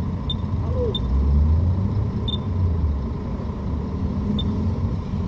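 Four short high beeps, spaced irregularly, from a digital tyre inflator's keypad as the target pressure is set, over a steady low vehicle rumble.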